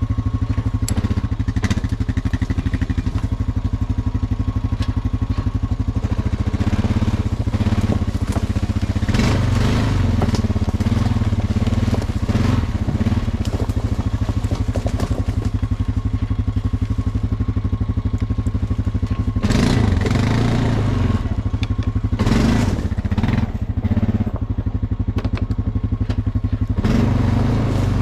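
Honda 420 ATV's single-cylinder four-stroke engine running steadily under way, with several stretches of crunching and scraping from dry leaves and brush under the tyres and against the machine.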